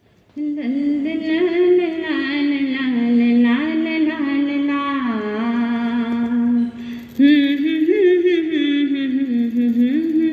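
A Jain nun (sadhvi) singing solo and unaccompanied, in long held notes with slow ornamented turns, pausing briefly for breath about two-thirds of the way through.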